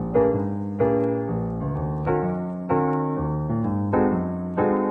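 Background music: a piano playing a steady run of chords, a new chord struck about every two-thirds of a second.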